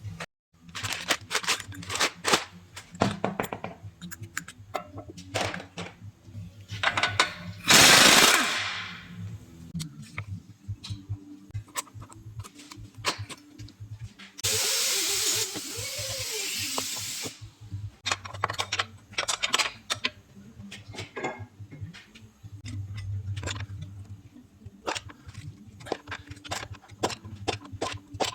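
Tools working on the car's front suspension during a lower control arm replacement: a string of metal clicks and knocks, a short, very loud power-tool burst about eight seconds in, and a steady power-tool run of about three seconds near the middle.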